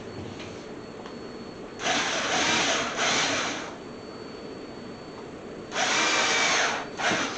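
Power drill running in short bursts: a burst of about two seconds with a brief break in it, then another of about a second, then a short blip.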